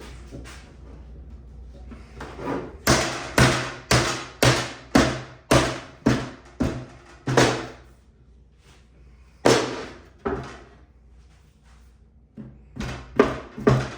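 Hammering on a wooden drawer part to drive a tight glued joint together: a run of about nine sharp knocks, roughly two a second, then two single knocks, and a fresh run starting near the end.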